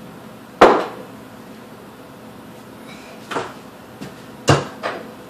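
Kitchen cupboard knocks while rummaging for a bottle: one sharp bang about half a second in, then three lighter knocks, two of them close together near the end.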